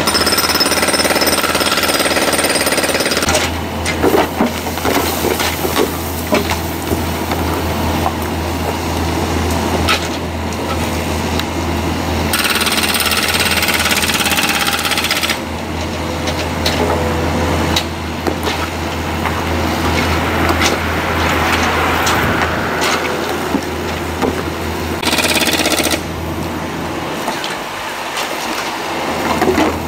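Excavator at work: its diesel engine runs with a steady low hum under a dense clatter of metal and rock knocking. The sound changes abruptly several times.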